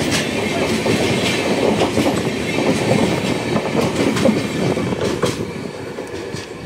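Passenger coaches of an Indian Railways express train rolling past, with a steady rumble and the clatter of wheels on the rails. The sound fades near the end as the last coach goes by and the train moves away.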